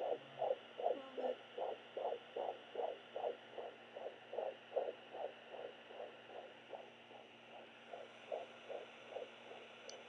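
Fetal heartbeat at 15 weeks through a Sonoline B pocket fetal Doppler's speaker: a rapid, regular pulse at about two and a half beats a second (around 145 beats a minute) over a steady hiss. The beats grow fainter for a couple of seconds past the middle, then come back.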